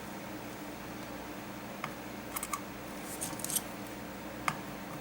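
A few small, sharp clicks and taps, scattered through the middle and near the end, over a faint steady hum.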